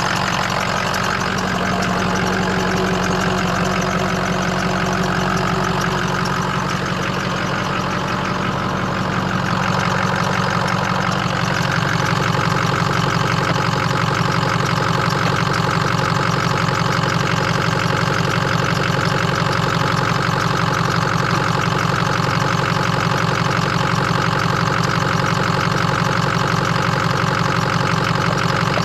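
Ford Super Duty pickup's turbo-diesel engine idling steadily under an open hood, heard close up in the engine bay, with a step up in loudness about eleven seconds in. It is on a test idle after a new thermostat, radiator and fan, to see whether the overheating is cured.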